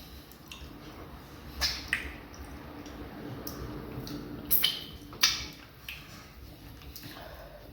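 Close-up eating sounds of fufu and vegetable soup: soft wet chewing and squishing, with a handful of sharp wet mouth smacks. The loudest smack is about five seconds in.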